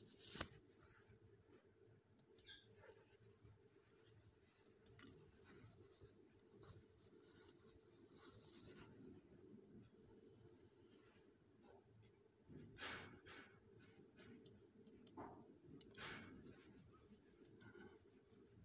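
An insect chirping in a high, rapid, even pulse, with a few faint clicks.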